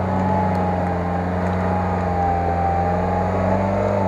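Off-road 4x4 engine held at steady, fairly high revs while working in deep mud, with a thin whine above the engine note.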